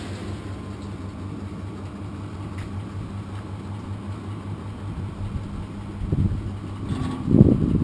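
A kindling splitter's 1 hp electric motor and flywheel running with a steady hum. About six seconds in, a burst of metal clanks and knocks comes as its bagging chute is swung down.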